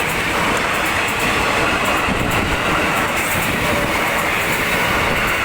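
KRL Commuter Line electric train running past close by, a steady loud rush of wheel and running noise with repeated sharp clicks as the wheels cross the rail switch.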